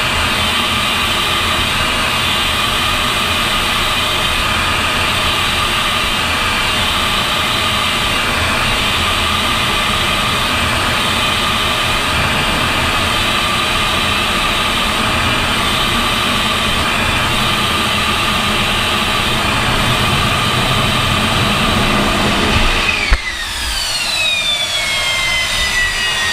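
AV-8B+ Harrier II's Rolls-Royce Pegasus vectored-thrust turbofan heard from inside the cockpit: a loud, steady jet noise with a whine while hovering for the vertical landing. About 23 seconds in there is a single thump as the jet sets down on the deck, then the turbine whine falls steadily in pitch as the throttle is brought back to idle.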